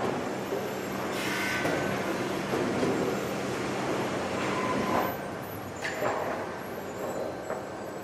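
Sawmill lumber conveyors running: a steady machinery hum and rumble, with a few knocks of boards moving along.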